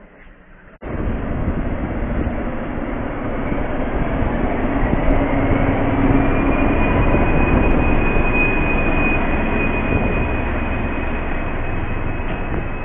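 Diesel locomotive and its train of double-deck coaches passing close by, engine running under a heavy rumble of wheels on rails. The sound starts abruptly about a second in, grows louder toward the middle and eases a little near the end. A high steady whine joins about four seconds in.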